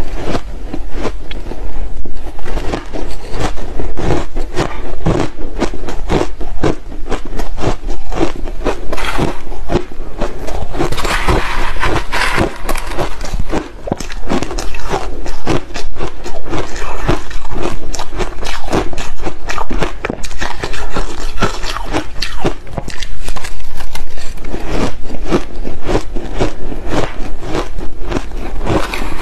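Close-miked chewing of big mouthfuls of crushed ice: a dense, irregular run of crunches and crackles, with a metal spoon scraping through the crushed ice in a plastic tub now and then.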